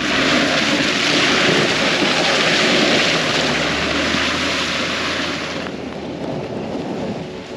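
Home-built karakat on huge low-pressure tyres, with a BMW 2.5-litre straight-six, driving past close by over wet, slushy ice: a steady engine hum under a loud hiss from the tyres. The hiss drops off about six seconds in as it pulls away.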